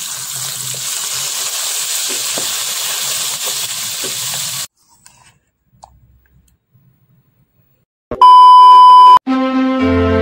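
Chicken tails deep-frying in a pot of hot oil, a steady sizzle that cuts off suddenly about four and a half seconds in. After a few seconds of near silence comes a loud, steady one-second beep, and music starts just before the end.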